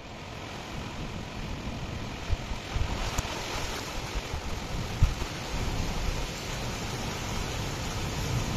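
Rain hiss from an arriving thunderstorm, getting louder and brighter about three seconds in, with wind gusts buffeting the microphone in short low bumps.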